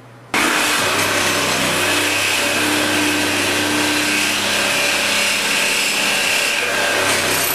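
Handheld power tool running steadily as it works into a vehicle body panel, cutting in abruptly just after the start.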